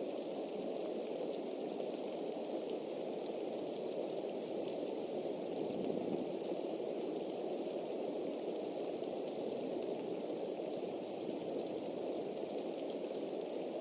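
Steady rain falling on the eagle nest and the tree around it: a continuous hiss with faint scattered ticks of single drops.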